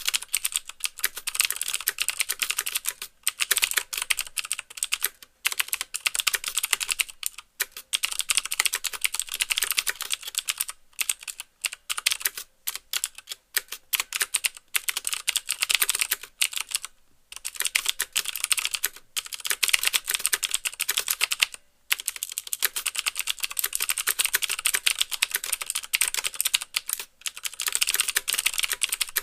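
Fast typing on a mechanical keyboard with Cherry MX Blue switches: each keystroke gives the switch's sharp click and the clack of the key bottoming out, in quick runs broken by brief pauses.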